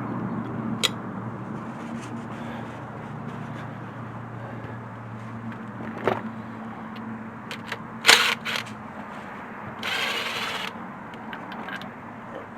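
Hand tools and metal engine parts being handled: several sharp metallic clicks and a short scrape about ten seconds in, over a steady low hum.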